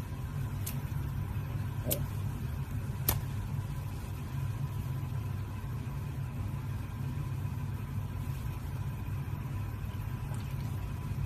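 A steady low rumble with a faint high tone running through it, and three light clicks in the first three seconds.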